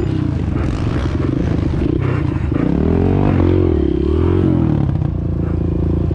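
Kawasaki KLX dirt bike's single-cylinder four-stroke engine running under throttle, heard from on the bike. The revs climb and drop through the middle of the ride and run steady before and after.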